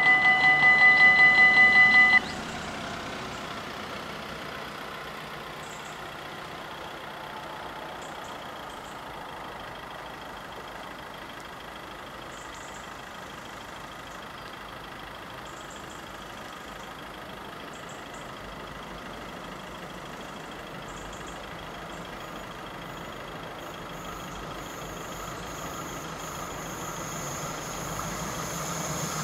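Level-crossing warning bell ringing in rapid electronic strokes, which stops abruptly about two seconds in once the barriers are down. After it, a steady low hum of road traffic, and over the last few seconds the sound of an approaching NMBS class 41 diesel railcar grows louder.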